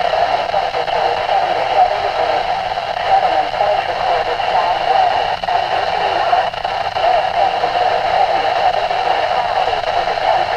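Midland WR-120EZ weather radio's speaker playing a garbled NOAA Weather Radio broadcast on 162.475 MHz: voices of several weather stations overlap with static, so no words come through clearly. This is co-channel interference from distant transmitters flooding in, which the owner puts down to the local transmitter dropping off the air.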